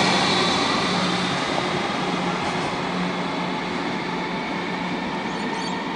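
Comeng electric suburban train pulling away and receding: its running noise, with a steady low hum, slowly fades as it moves off down the line.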